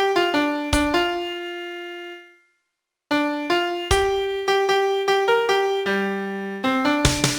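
Piano playing a song melody one note at a time; a held note dies away into a short silence about two and a half seconds in, then the melody starts again, with fuller low accompaniment chords coming in near the end.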